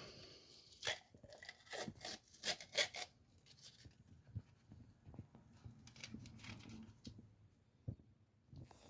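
Faint handling noises while working on an engine: a cluster of sharp clicks and rustling in the first three seconds, then only scattered soft knocks.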